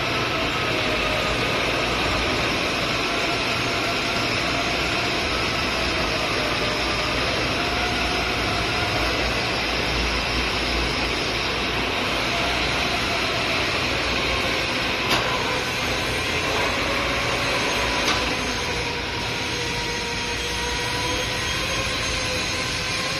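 Metal lathe running while it turns a steel stud bar under flowing coolant: a steady mechanical hum with a hiss. Two short clicks come in the second half.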